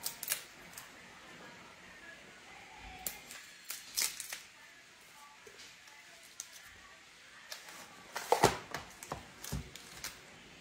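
Hands handling a small vape device and its plastic packaging: scattered clicks and rustles in three bunches, the loudest about eight seconds in.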